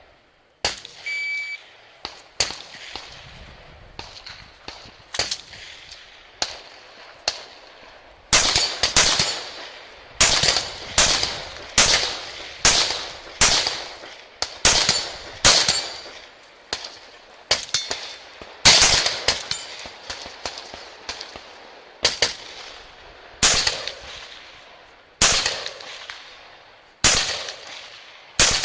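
A shot timer beeps about a second in, then a practical-rifle competitor fires a long string of single rifle shots. A few sparser, quieter shots come first; from about eight seconds in the shots come loud and steady, roughly one a second, each with a short echo.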